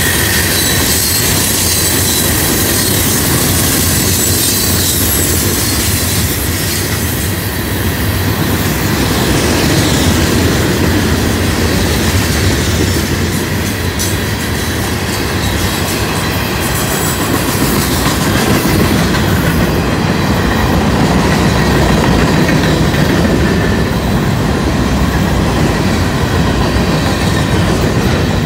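Freight train cars rolling past close by: a steady loud rumble and clatter of steel wheels on the rails, with a thin high wheel squeal near the start.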